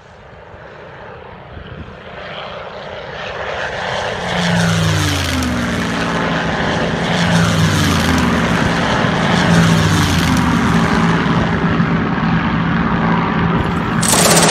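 Propeller aircraft engines droning, growing steadily louder from near silence, with the engine note falling in pitch several times as planes pass. Near the end a sudden, louder and harsher noise cuts in.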